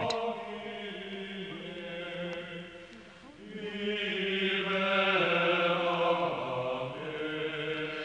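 Choral chant: voices singing long, steady held notes. The sound fades about three seconds in, then swells again.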